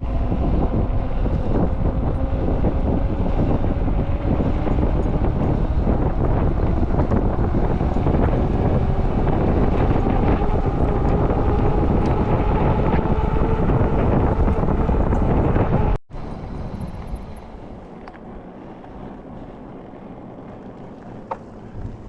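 Heavy wind buffeting the microphone while riding a Mukkpet e-bike, with a faint whine from the electric motor rising in pitch as it speeds up. About 16 seconds in it cuts suddenly to much quieter wind.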